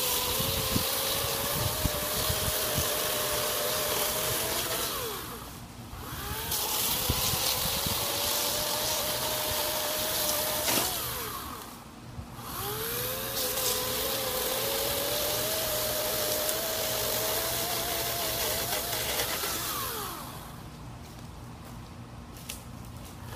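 EGO 56-volt battery-powered electric chainsaw cutting through river birch logs about ten inches thick. It runs in three spells of several seconds, each spinning up with a rising whine, holding a steady high whine through the cut and winding down between cuts. It goes quieter near the end.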